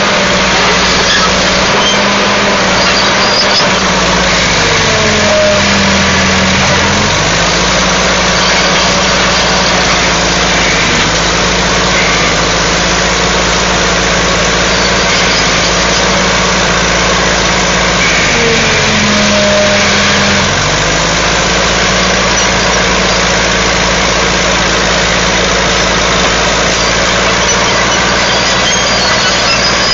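Diesel engine of a Caterpillar 955H track loader running steadily while the loader pushes through brush. Its note dips and recovers twice, about five seconds in and again near twenty seconds, as the engine is loaded.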